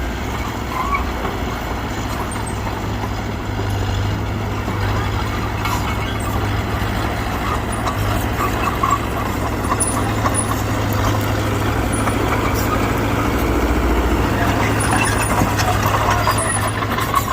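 Heavy diesel engine of earthmoving machinery running steadily under load with a low drone, with a few light metallic clanks.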